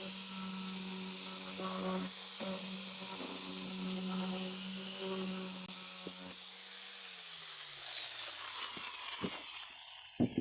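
Small electric power tool fitted with a homemade Velcro sanding pad, running steadily while sanding wood. About six seconds in it is switched off and its pitch falls as it winds down, followed by a couple of knocks near the end.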